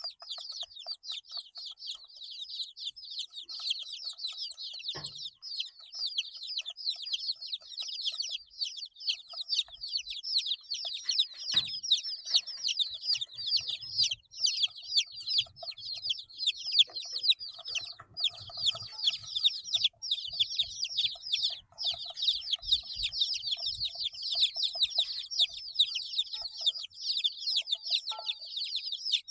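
A brood of 8-day-old chicks peeping continuously, many short, high, downward-sliding peeps overlapping in a constant chorus. Two sharp clicks stand out, about five and twelve seconds in.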